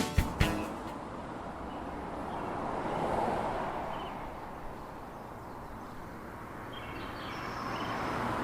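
Outdoor ambience: a steady rushing background that swells twice, with a few faint bird chirps. The last hits of intro music die away right at the start.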